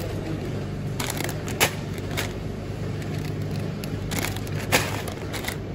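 Plastic film bag of packed rice crinkling and crackling as it is handled on a scale, with several sharp crackles, two of them loud. Under it runs a steady low machine hum.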